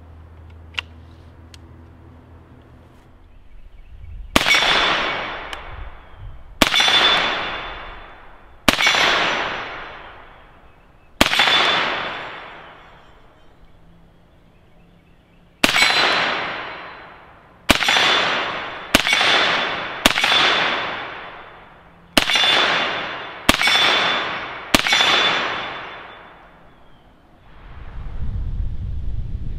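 IWI Tavor bullpup rifle with a 9mm conversion kit firing about eleven single shots in slow fire, spaced one to four seconds apart, each followed by a long echoing fade. A thin metallic ring carries on after most shots, steel targets being hit.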